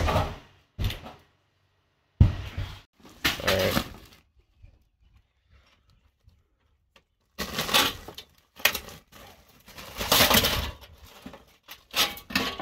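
Latches joining a QuietCool whole house fan's blower housing to its foil flex duct being undone by hand: two spells of clicks, clacks and rattling of the fan parts, a few seconds apart.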